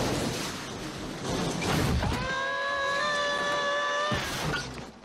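Heavy metal tool chest clattering and banging down a flight of stairs, a long dense rumble of impacts. Over the middle of it, for about two seconds, a set of steady ringing tones is held, and the clatter stops with a last crash just after four seconds in.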